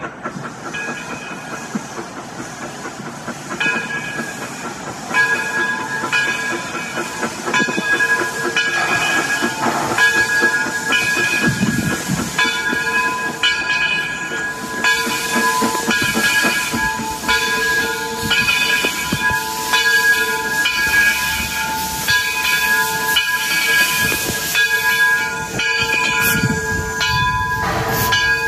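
A steam locomotive's bell ringing steadily, a strike about every three-quarters of a second, starting a few seconds in, over the hiss and rumble of a 4-4-0 steam locomotive pulling its train into the station.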